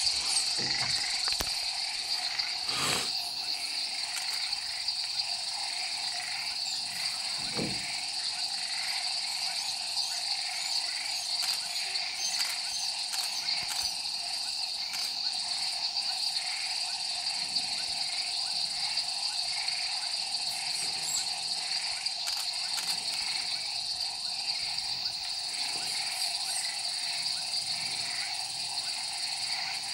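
Steady night chorus of insects, several layers of high trilling and buzzing with a faint pulsing, with a couple of brief soft knocks about three and eight seconds in.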